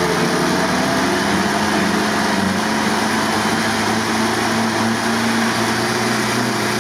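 Willys jeep's engine idling steadily, its pitch wavering slightly at first and then settling, running again after a hard no-start that was worked on by changing spark plugs.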